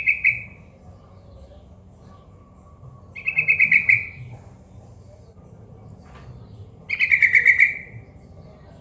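Young yellow-vented bulbul (trucukan) calling in three short bursts of fast chattering notes, each under a second long, spaced about three and a half seconds apart.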